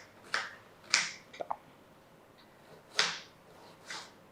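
Knife chopping an onion into small pieces on a cutting board: four separate sharp chops, with a pause of about two seconds between the second and third.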